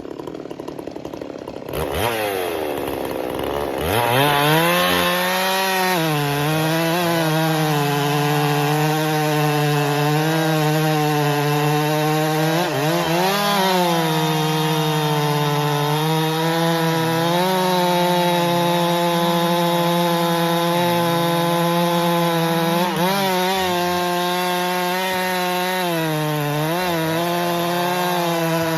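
Chainsaw engine running at low speed, then revving up to full throttle a couple of seconds in and held there while cutting through wood, its pitch dipping briefly every few seconds as the chain bites into the log.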